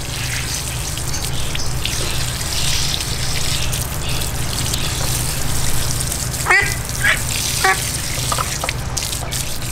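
Water from a garden hose spraying over a young duck's wet feathers and splattering on a tiled floor, a steady hiss. A few short, high rising calls come about two-thirds of the way through.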